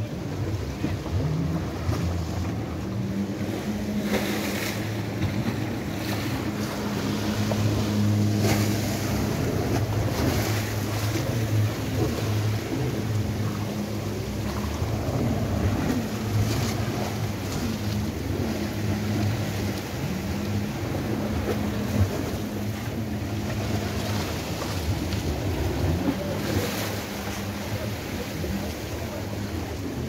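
Sea waves washing over a rocky shore, with wind buffeting the microphone and a steady low engine hum underneath.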